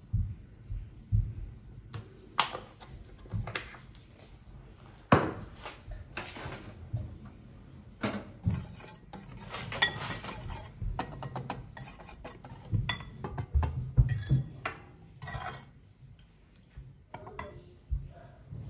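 Dry ingredients being mixed by hand: a metal wire whisk stirring flour in a ceramic bowl, with repeated clinks and taps against the bowl and a denser scraping run around the middle. Near the start there are also a few clinks from a glass spice jar.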